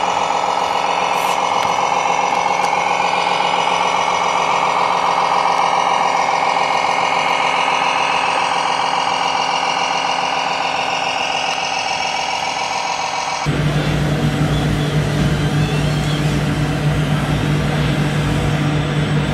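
Radio-controlled model trucks running, a steady engine-like drone. About 13 seconds in it changes abruptly to a lower steady hum over a busier background.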